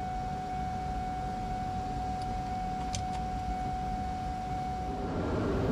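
A steady, constant-pitch electronic warning tone from an SN95 Ford Mustang with the ignition switched on and the engine off, stopping about five seconds in. It sounds over a low steady rumble, with a couple of faint clicks midway.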